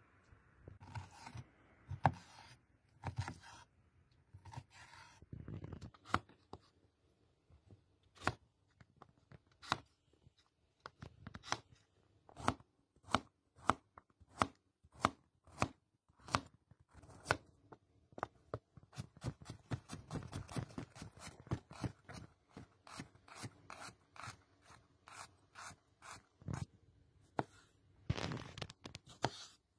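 Damascus steel cleaver chopping carrots and cherry tomatoes on a cutting board: a run of sharp knocks of the blade through the food onto the board, about one a second at first, then quickening to two or three a second in the second half.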